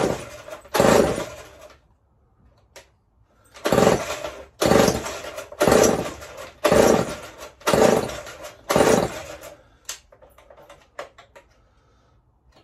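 Recoil starter of a Stihl 07S chainsaw pulled about eight times in strokes roughly a second apart, with a short pause after the first two; the engine does not fire. A few light knocks follow near the end. The owner puts the failure to start down to a spark that comes and goes.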